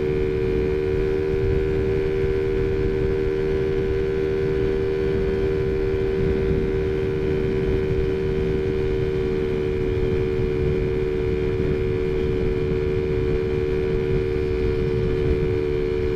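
Taotao Zummer 50cc four-stroke scooter engine, fitted with a pod filter on the carburetor, running at a steady high speed while cruising, a loud constant drone at one unchanging pitch. Wind rushes on the microphone underneath.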